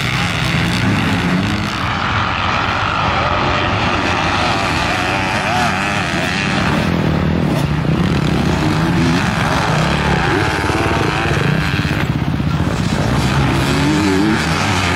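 Several motocross bikes running on the track together, their engines revving up and down with constantly shifting pitch.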